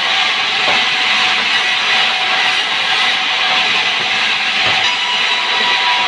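Sawmill vertical band saw running and ripping a log slab into boards: a loud, steady, high-pitched sawing noise that does not let up.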